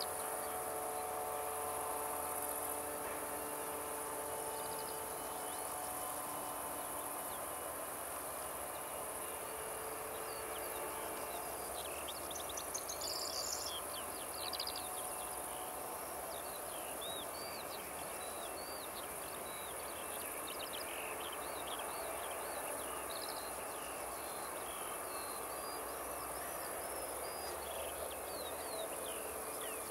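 Insects in the grass chirping in a steady high-pitched drone, over the faint steady whine of a distant Boeing 757-300's jet engines at taxi power. Short bird chirps come in from about halfway through.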